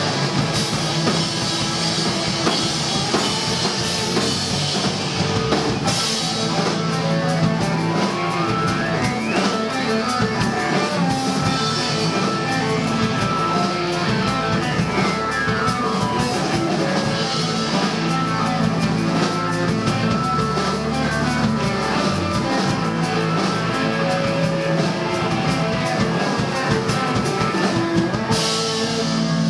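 Rock band playing live: electric guitars and a drum kit at a steady loud level.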